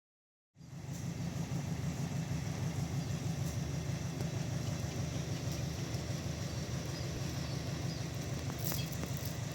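An engine running steadily with a low rumble, cutting in abruptly about half a second in, with a few faint clicks near the end.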